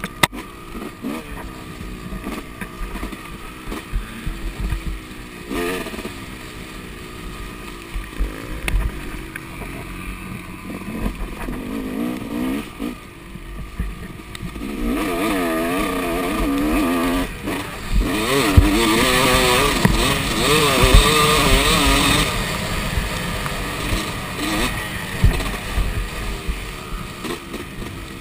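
Yamaha dirt bike engine heard on board, its revs rising and falling with the throttle, with scattered knocks. About halfway in it runs louder and harder for several seconds, then eases off.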